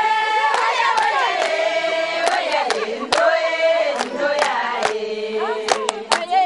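A group of women singing together in long held notes that step down in pitch, with sharp percussive strikes sounding through the song.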